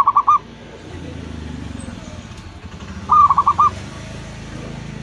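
Zebra dove (perkutut) cooing: two short phrases, each a longer first note followed by three or four quick staccato coos. One comes right at the start and another about three seconds in.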